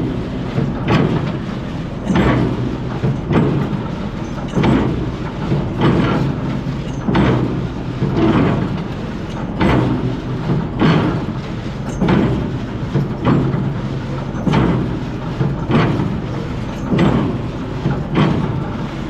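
A 60-year-old tractor-driven square baler running empty, its plunger and knotter mechanism clanking once about every 1.2 seconds over the steady hum of the tractor engine. It is being run to work loose and polish off rust after years of sitting.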